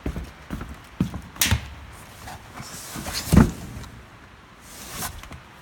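A string of knocks and thuds, with one heavy thump about three and a half seconds in and two short hissing sweeps.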